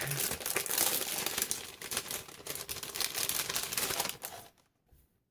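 Plastic packaging crinkling as it is handled and opened: a dense run of crackles that stops about four and a half seconds in.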